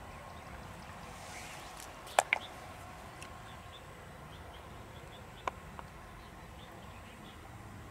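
A few sharp clicks or knocks, two close together about two seconds in and a single one about five and a half seconds in, over a faint steady background with faint small chirps.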